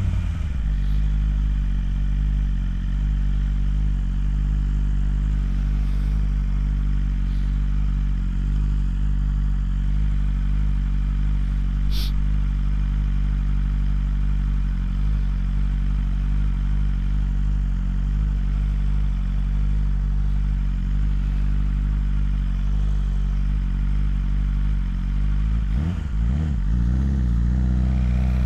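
BMW S1000RR's inline-four engine idling steadily, with a single sharp click about twelve seconds in. Near the end the engine note wavers and then climbs as the revs rise.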